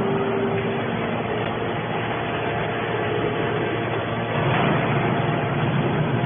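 Hydraulic scrap iron baler running, a steady mechanical drone with a held tone that stops about a second in.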